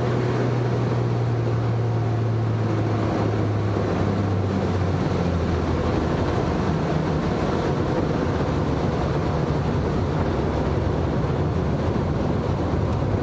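Panzl aerobatic plane's piston engine and propeller droning at low power during the landing and rollout, heard from the cockpit. The drone drops in pitch about four seconds in, with wind and rumble over it.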